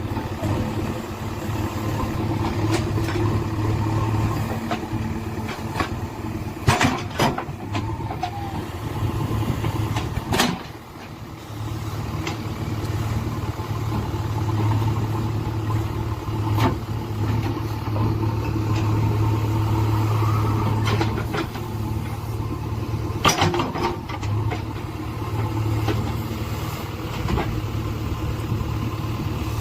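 JCB backhoe loader's diesel engine running steadily under work with a low drone, with a few sharp knocks of the machine working the soil.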